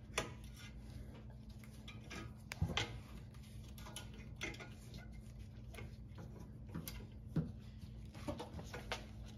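Scattered faint metallic clicks and scrapes of pliers working the pad-retaining clip on a Porsche 993 rear brake caliper, over a steady low hum.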